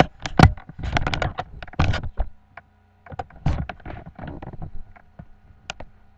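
Handling noise as the camera is picked up and swung around: irregular knocks, bumps and rustles, busiest in the first two seconds, then sparser clicks over a faint steady hum.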